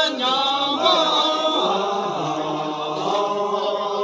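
Buddhist chanting: voices singing in a slow, sustained melodic line with drawn-out notes.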